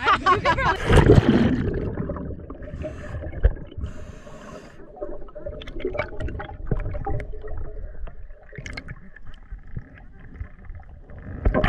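Water sloshing and gurgling around a diver moving in it, loudest about a second in, then quieter with scattered small clicks.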